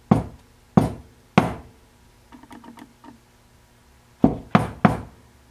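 Sharp knocks of a Ford C6 transmission valve body being rapped on the workbench to work stuck valves loose: three in the first second and a half, a few faint light clicks in the middle, then three more near the end.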